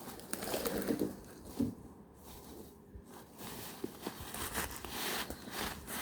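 A pine log being dragged by hand over the woodland floor, with irregular scraping, rustling and knocking as it is pulled. A few short grunts of effort come in the first two seconds.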